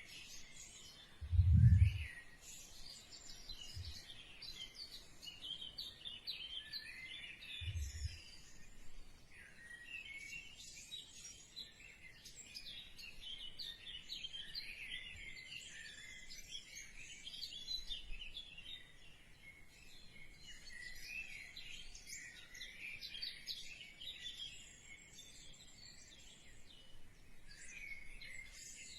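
Small birds chirping and twittering continuously, with a dull thump about a second and a half in and a softer one about eight seconds in.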